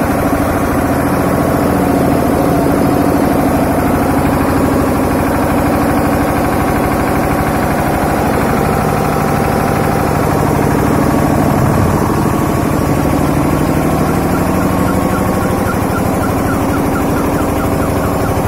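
10 HP engine of a sprayer unit running steadily at a constant speed, driving its 10 HP water pump.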